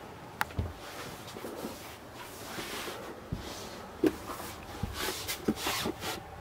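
Handling and movement noise from someone filming with a handheld camera: a few sharp clicks and knocks, the loudest about four seconds in, among rustling and shuffling.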